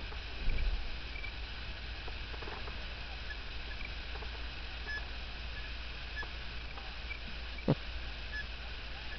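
Distant fireworks at night: a low, dull boom about half a second in and a single short sharp pop near the end, over a steady hiss and low hum with faint short chirps.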